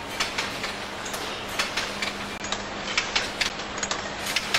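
Automatic chain-making machine running as steel wire feeds in through its guide rollers: irregular sharp metallic clicks, about two or three a second, over a steady low hum.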